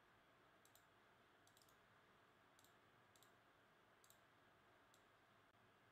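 Near silence: room tone with a few faint, irregular clicks of a computer mouse.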